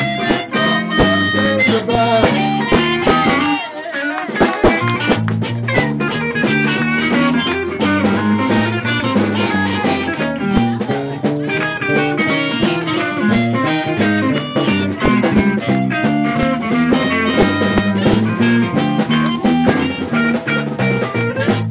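Live amplified band playing an instrumental guitar passage with a walking bass line, without singing. The low end drops out briefly about four seconds in, then the band carries on.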